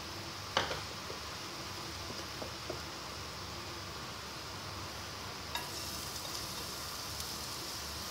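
Olive oil heating in a frying pan, giving a faint, steady sizzle, with a single light knock about half a second in.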